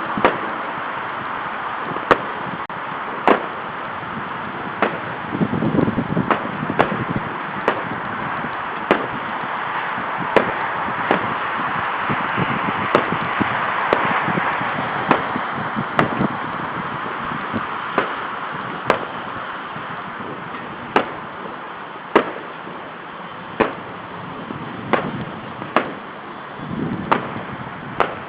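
Fireworks going off at a distance: sharp bangs about once a second over a steady, noisy background din.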